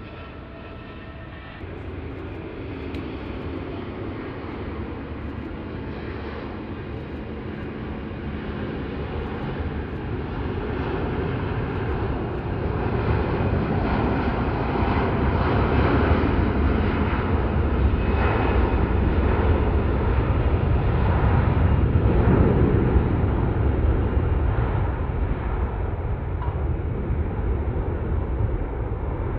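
Jet airliner's engines on departure: a steady rumble that grows louder over about twenty seconds, peaks, then eases slightly near the end.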